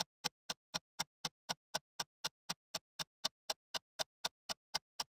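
Clock-ticking sound effect: sharp, evenly spaced ticks, about four a second, over dead silence.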